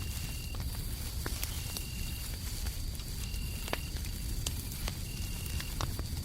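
Fireplace crackling with scattered sharp pops over a low rumble, while crickets sing: one steady high trill and another in short trills that recur about every second and a half.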